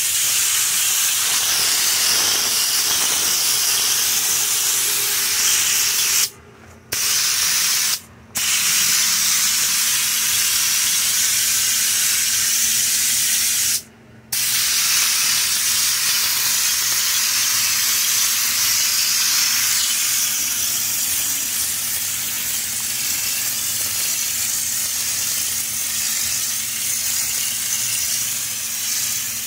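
Compressed air hissing steadily through a Raptor bed-liner spray gun as it sprays the textured coating onto a pickup's bed panel. The hiss cuts out three times for a moment in the first half, as the trigger is let go.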